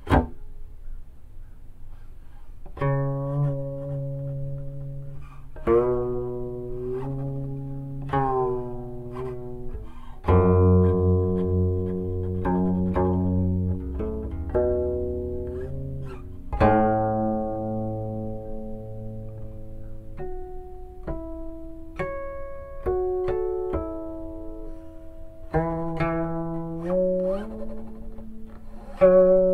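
Guqin (seven-string Chinese zither) played solo: single plucked notes and short phrases ringing and decaying, several sliding up or down in pitch as the left hand glides along the string. A run of higher, purer-toned notes comes about two-thirds of the way through.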